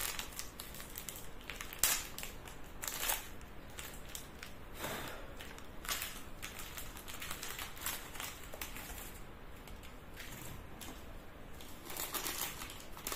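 Plastic biscuit packet crinkling and crackling as it is handled and torn open, in short, irregular spells, the loudest about two, three, five and six seconds in and again near the end.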